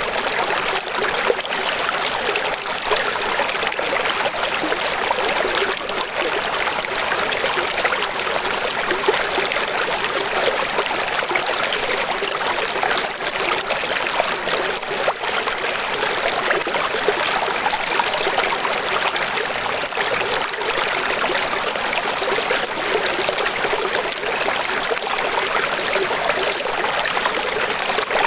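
Running water flowing steadily, an even splashing hiss with little low rumble.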